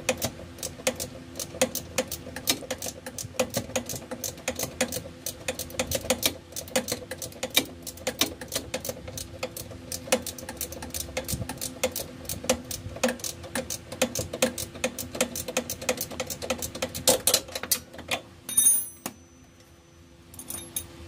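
Ratchet wrench clicking in rapid, repeated strokes as it backs out the upper bolt of a rear shock absorber. The clicking stops a few seconds before the end, after one last short burst, over a faint steady hum.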